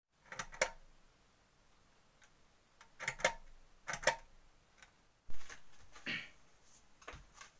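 Small clicks and taps from a hand handling the camera, coming in pairs about a fifth of a second apart, three times. About five seconds in there is a duller thump, then some rustling.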